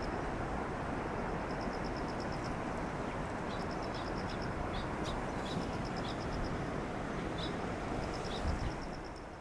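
Steady rushing wind on the microphone, with short, rapid high-pitched trills from a calling animal repeating every second or two, and a low bump near the end.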